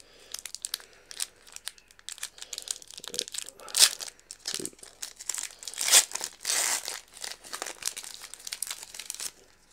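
Foil trading-card booster-pack wrapper being torn open and crinkled by hand: a dense run of crackles, with louder rips about four and six seconds in and a longer tearing stretch just after six seconds, stopping shortly before the end.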